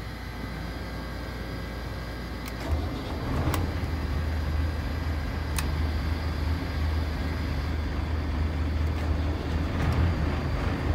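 A trawler's diesel engine is started from the panel buttons and catches about three seconds in, then runs steadily with a low rumble. A few sharp clicks from the panel's buttons and switches come over a faint hum before the start.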